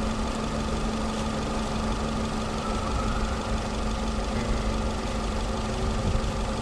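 Nissan Sentra's four-cylinder engine idling steadily, freshly restarted with a new mass air flow sensor after a P0101 fault code.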